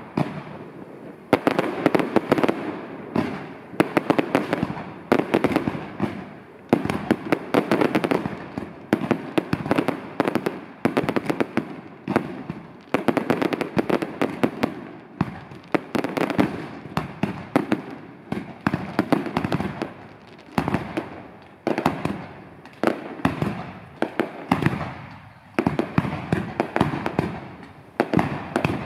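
Aerial fireworks display: a continuous barrage of shell bursts, rapid bangs following one another with no pause.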